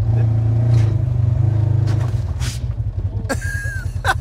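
Side-by-side UTV engine running with an even low pulse, a little louder in the first two seconds as it pulls forward. Near the end a person yells as the machine knocks into a person in an inflatable bubble ball.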